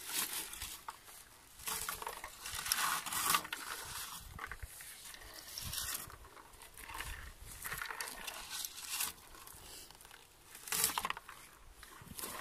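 Blueberry shrubs, leaves and dry twigs rustling and crackling in irregular bursts as berries are picked from them. The loudest bursts come about two to three seconds in and again near the end.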